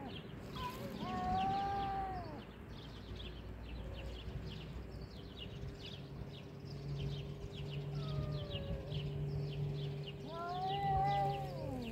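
Domestic cats yowling at each other in a standoff: long wavering caterwauls that rise and fall, about a second in, again briefly around eight seconds and loudest near the end, with a low steady growl between the calls.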